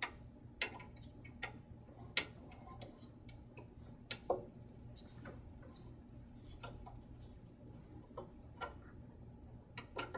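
Small hex Allen wrench turning a screw out of a metal stage brace: a run of small, irregular metallic clicks and ticks as the wrench is worked and reset, the sharpest right at the start.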